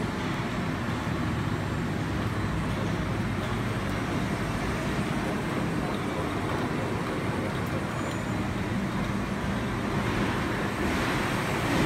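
OUGE OGB-4S automatic PET bottle blow-moulding machine running: a steady, dense mechanical hum and rattle at an even level, without separate strokes.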